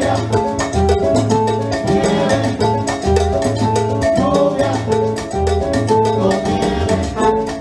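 A live salsa orchestra playing through stage speakers, with brass, percussion and a repeating bass line.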